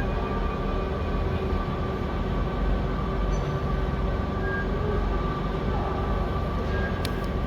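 Steady machinery noise of a robotic welding line: a low rumble with a constant hum, and a few brief clicks near the end.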